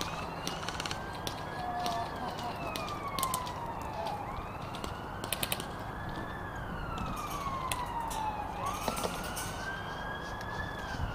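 Wailing siren, its pitch rising and then slowly falling in long cycles about four seconds apart, with a few sharp clicks over it, including a quick run of several clicks near the middle.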